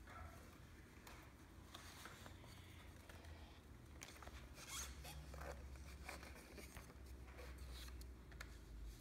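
Faint, irregular scraping and clicking of a homemade rubber band car being wound by hand, its CD wheel turned to twist up the rubber band.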